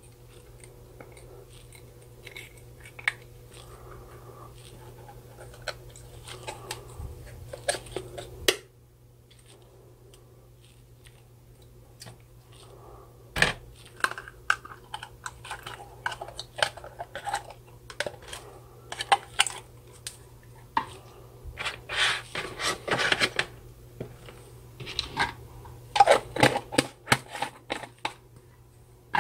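Old slime being squeezed and pulled out of a small clear plastic jar by hand: sticky clicks and crackles with light plastic knocks. There is a lull of a few seconds about a third of the way in, and the crackling is denser after it.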